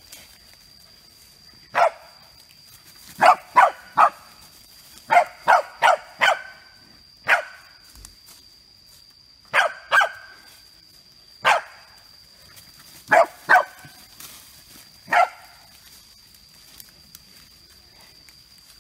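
Pembroke Welsh Corgi barking: about fifteen short, sharp barks, singly and in quick runs of two to four, stopping a few seconds before the end.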